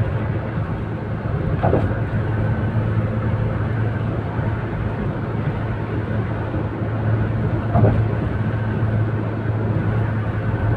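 Steady low drone of a car's engine and tyres heard from inside the cabin while driving at speed, with two brief thumps about six seconds apart.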